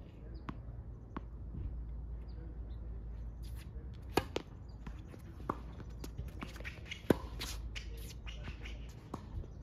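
Tennis ball bounced a few times on a hard court before a serve, then the serve struck with a sharp pop about four seconds in. The rally follows: ball bounces and racket hits, the loudest about seven seconds in.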